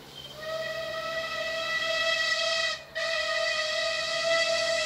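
Steam locomotive whistle sounding two long blasts: the first starts just after the beginning and breaks off a little before three seconds in, and the second follows at once and is still sounding at the end.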